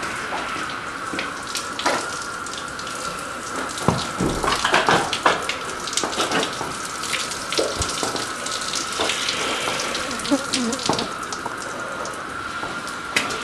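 Garden hose spraying a fine mist of water over horses' wet coats: a steady hiss of spray with many small spatters. It grows louder for a moment about four seconds in.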